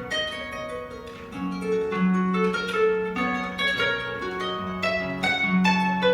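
Live instrumental passage on a plucked string instrument: single notes picked one after another, each ringing and fading, between sung lines of a song.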